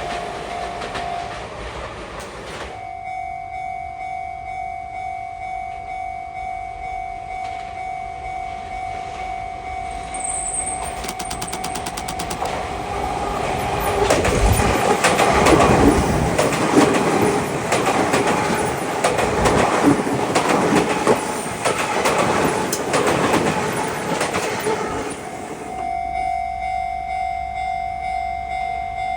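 Japanese level-crossing warning bell ringing over and over. The tail of one passing train fades in the first few seconds. About eleven seconds in, a Tokyu 3000 series electric commuter train starts coming through with evenly spaced clicks of its wheels over rail joints, and for about ten seconds it is much louder than the bell. The bell carries on after it has passed.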